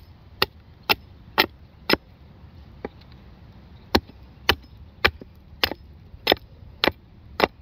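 A 24-inch axe chopping the end of a wooden stake to a point: sharp strikes about two a second, in a run of five, a pause of about two seconds, then another run of seven.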